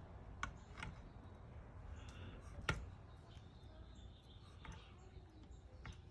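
A few faint clicks and taps of small metal wiper-linkage parts and tools being handled, with one sharper click a little under three seconds in.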